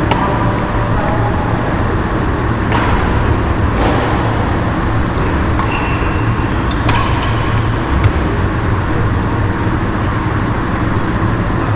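Badminton being played on a wooden court: several sharp racket hits on the shuttlecock and a few short high squeaks, over a loud, steady rumbling noise.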